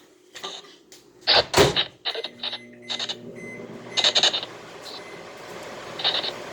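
Spirit box app output: a string of short, choppy bursts of static and clipped sound fragments at irregular intervals, the loudest about a second and a half in, over a hiss that builds from about two seconds in.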